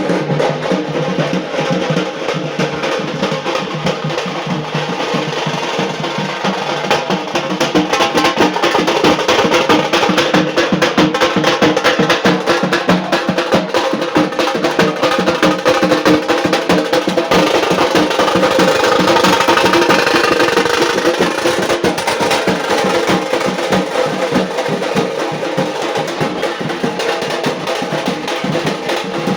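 Loud music with fast, dense drumming over steady pitched tones.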